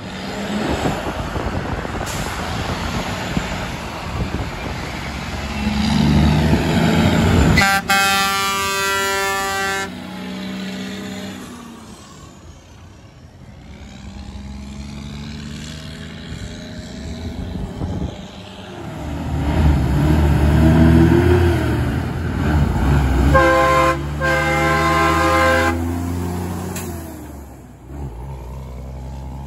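Two dump trucks driving past, each sounding its air horns for about two seconds: first a Kenworth T802 with twin Grover 1700 air horns, cutting off suddenly, then a Sterling L9513 whose horns sound a chord of several tones. Between the blasts the diesel engines and tyres of the passing trucks swell and fade.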